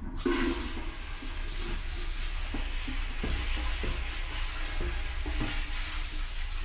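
Water spraying from a hose nozzle into the open stainless-steel still boiler to rinse it out: a steady hiss that starts suddenly, with a few soft knocks.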